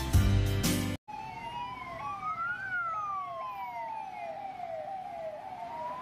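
Background music for about the first second, then a cut to an ambulance's sirens: one siren slowly rises and falls while another repeats a quick falling sweep about twice a second.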